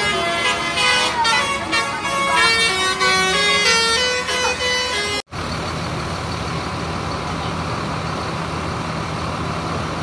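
Tour bus's musical telolet/basuri horn playing a quick tune of stepped notes for about five seconds, cut off suddenly. After the cut, a bus engine runs steadily with a low hum.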